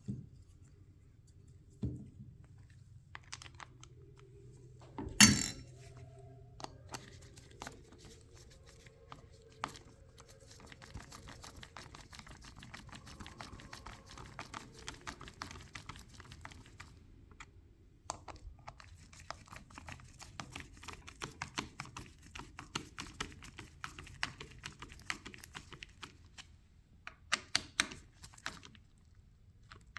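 Small metal parts and hand tools being handled: runs of rapid light clicking and tapping, with one loud knock about five seconds in.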